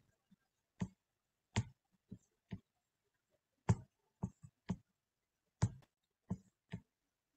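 Computer mouse clicking: about eleven single clicks at uneven intervals, with silence between them.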